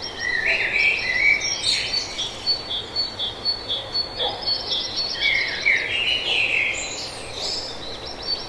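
Songbirds singing: a high note repeated about twice a second, with two louder bouts of varied, warbling song from another bird, one in the first two seconds and one from about five seconds in.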